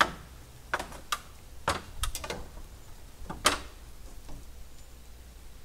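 A cut length of metal trim channel being test-fitted against the wooden greenhouse framing. It gives about half a dozen sharp, irregular clicks and knocks over the first three and a half seconds.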